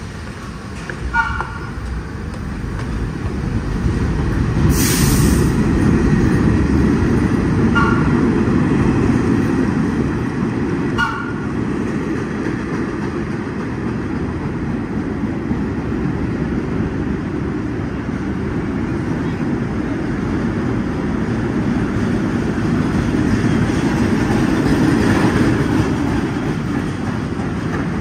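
Vintage R1/9 subway cars running through an underground station: a loud, steady rumble of steel wheels on rail that builds a few seconds in. Three short toots sound about 1, 8 and 11 seconds in, with a brief hiss of air about five seconds in.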